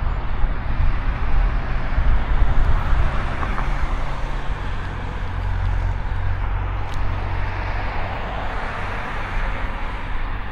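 Steady noise of riding a bike on a road: a continuous low rumble with an even hiss above it.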